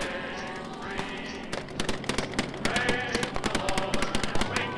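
Rapid gunfire, many shots in quick succession from about a second and a half in, with voices sounding underneath.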